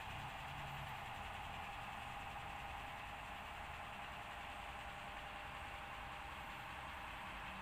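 Steady mechanical hum with a hiss, with no distinct events.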